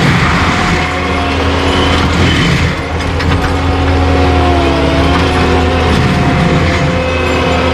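Tracked skid steer with a forestry mulcher head running steadily under load: a continuous engine drone with a rattling mechanical clatter and a higher whine that wavers in pitch.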